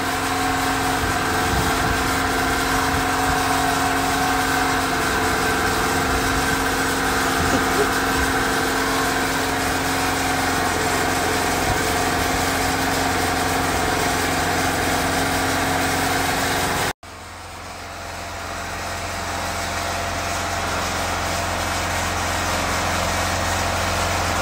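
Portable petrol generator engine running steadily at a constant speed, with a steady hum. The sound cuts out for an instant about 17 seconds in, then returns and builds back up over a few seconds.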